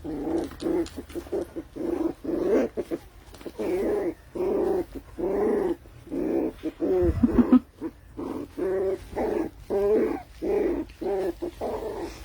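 A dog giving a long run of short, whining barks and yelps, about one or two a second, with a low thump about seven seconds in.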